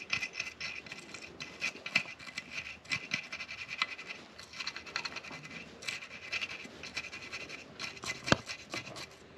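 Soft-bristled toothbrush scrubbing lightly over e-bike battery terminals to break up corrosion: a rapid, irregular scratching, with one sharper tap near the end.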